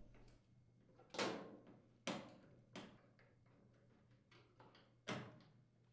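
Faint, scattered clicks and knocks of a nut driver, screw and cord hardware against the Whirlpool gas dryer's sheet-metal frame as the new power cord's grounding wire is fastened. There are four distinct knocks a second or so apart, the first the loudest, with a few lighter ticks between them.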